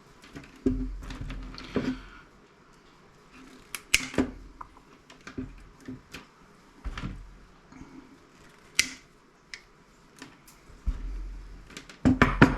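Scrap parts stripped from a CRT monitor being handled and set down on a work surface: irregular clicks, clacks and knocks, some with a dull thud, the loudest cluster near the end.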